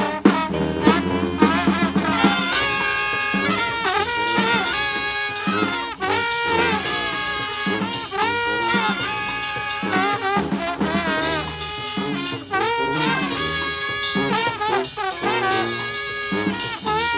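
Live brass street band playing an upbeat instrumental, horns carrying a melody in short phrases over drum hits.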